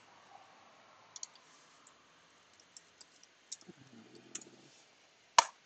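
Light keyboard keystrokes, a few sparse clicks typing a search word, then one louder single key or mouse click near the end.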